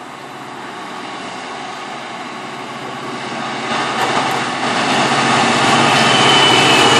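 Freightliner Class 66 diesel-electric locomotive approaching with a container train: its two-stroke V12 diesel engine and the train running on the rails grow steadily louder as it draws close. A thin high tone joins near the end.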